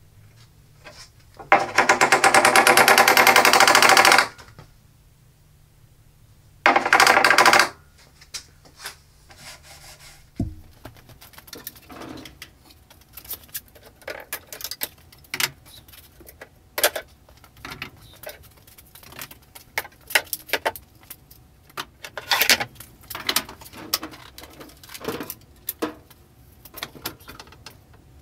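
Two loud, fast mechanical rattles, the first about two and a half seconds long and the second about a second, then bar clamps being loosened and lifted off a glued-up wooden panel: scattered clicks, knocks and clatter of metal clamps against wood.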